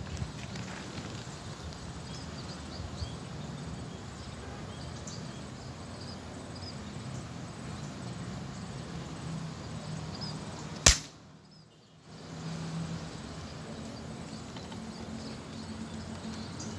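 A single sharp shot from an air rifle firing a 4.5 mm pellet, about two-thirds of the way through, over a steady outdoor background with faint high bird chirps.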